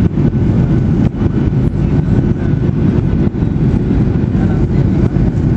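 Steady, loud cabin rumble inside a Boeing 737-800 on final approach with flaps extended: its CFM56-7B engines and the airflow over the airframe, with a faint steady whine above the low roar.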